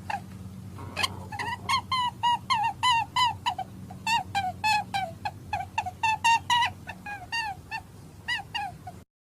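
Rabbit giving a quick series of short, high squeaks, about three a second, each rising and then dropping in pitch, over a steady low hum; the calls cut off suddenly near the end.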